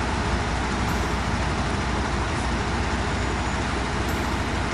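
Steady low rumble of a truck running, heard from inside its cab.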